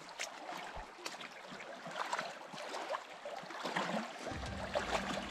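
Feet wading through a shallow, cobbled creek: repeated short splashes over the running stream. About four seconds in, a low steady drone comes in underneath.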